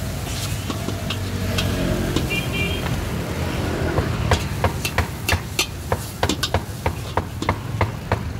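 Metal spatula scraping and clanking against a steel wok as fried noodles are stir-fried and tossed. The strikes are sharp and come about three times a second in the second half. Underneath is a steady low rumble.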